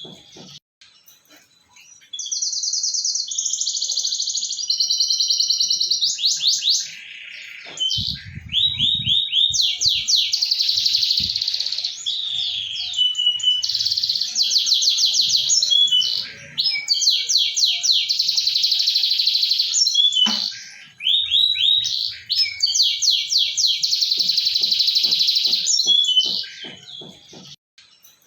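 Domestic canary singing a long, fast song of rapid trills and rolls, breaking off briefly now and then, with a short pause at the start and near the end. This is a canary lure song, played to stir canaries that have stopped singing into song.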